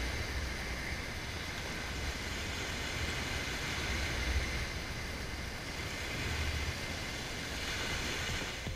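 Steady rushing of small waves breaking on a sandy beach, with an uneven low rumble of wind buffeting the microphone.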